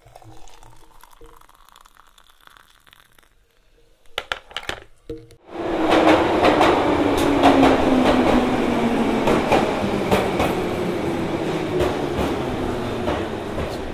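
A London Underground train cuts in loudly about five and a half seconds in, after a quiet stretch with a few clicks. It is a dense rattling clatter with a low tone that falls slowly in pitch.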